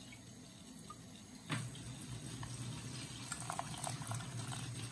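Cold water poured over blueberry pulp in a mesh strainer, starting suddenly about a second and a half in and running steadily as it drains through a funnel into a plastic pitcher.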